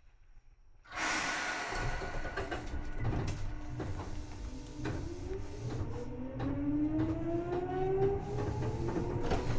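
Seibu 2000 series electric train starting off: about a second in, a sudden burst of hiss and running noise sets in, and from about the middle several whines rise steadily in pitch as the train gathers speed.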